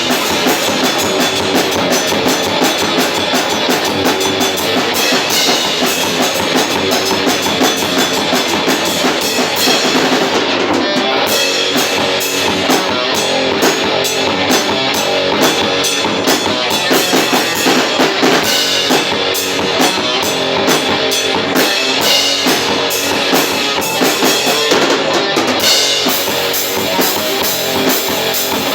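Metal band playing live: a drum kit hitting dense, fast beats under electric guitar and bass.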